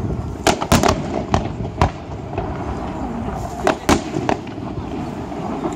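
Aerial firework shells bursting in a rapid, irregular string of sharp bangs, about five in the first two seconds and another three close together near four seconds in.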